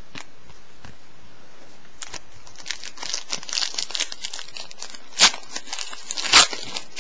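Plastic wrapper of a trading-card pack crinkling as it is torn open, a dense run of crackles starting about two seconds in, with two loud sharp crackles near the end.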